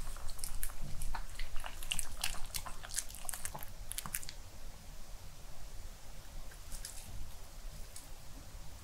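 A Pomeranian chewing a crispy-coated chicken cheese cutlet, with quick crunching bites for about four seconds. After that there are only a few scattered crunches.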